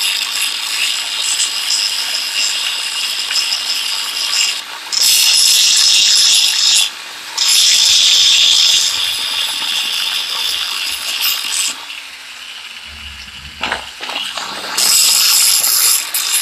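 Handheld angle grinder's disc grinding the steel jaw of an adjustable wrench: a harsh, hissing metal-on-abrasive noise that grows louder in stretches, eases off for a few seconds about three-quarters of the way through, then comes back loud near the end.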